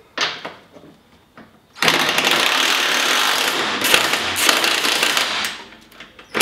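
A few light clicks, then a power drill turning an 18 mm socket runs steadily for about four seconds, backing out a seat-belt mounting bolt, and stops near the end.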